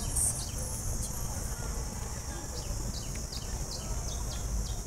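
Small birds chirping: many short, quick calls, each sliding down in pitch, over a steady low outdoor rumble and a high steady hiss.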